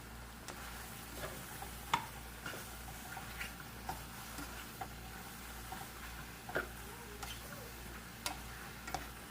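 Scattered light clicks and taps of kitchen utensils being handled during food preparation, irregular and a second or so apart, over a steady low hum.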